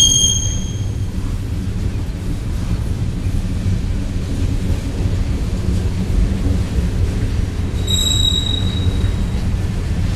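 Freight cars of a slow CSX mixed freight train rolling past with a steady low rumble of wheels on rail. A high wheel squeal fades out in the first second and comes back briefly about eight seconds in.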